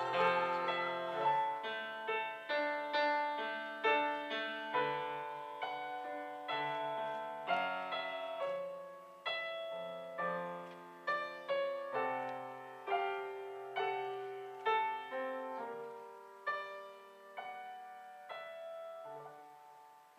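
Grand piano playing a slow solo passage, notes and chords struck about once a second and each dying away, growing gradually softer. A woman's sung note with vibrato ends in the first second.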